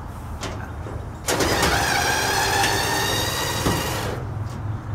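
Cordless drill-driver running for about three seconds, starting suddenly a little over a second in, as it backs a screw out of a dryer's cabinet.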